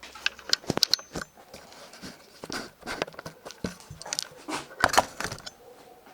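Metal objects clinking and rattling as they are handled, in quick irregular clicks and clanks, loudest about a second in and again near five seconds.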